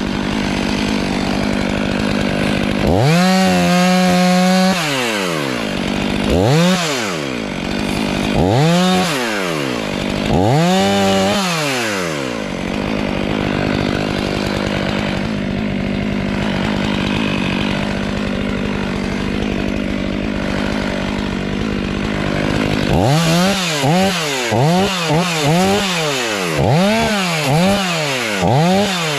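Stihl MS 500i chainsaw, a fuel-injected two-stroke, idling steadily between throttle bursts. A longer burst comes about three seconds in, then three short rising-and-falling revs, then a long spell at idle, and near the end a quick run of short revs.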